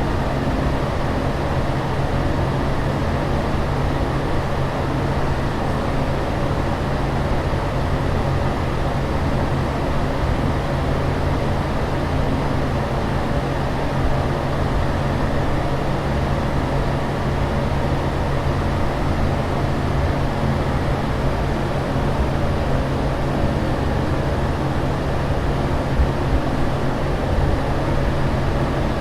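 Steady airliner cabin drone: an even rushing noise over a constant low hum, unchanging throughout.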